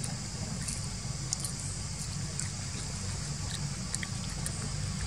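Steady outdoor background noise: a low rumble and a high hiss, with a few faint clicks scattered through it.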